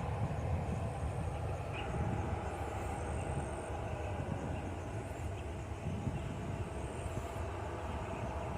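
Jet airliner engines running steadily, a continuous low rumble with a faint steady whine above it.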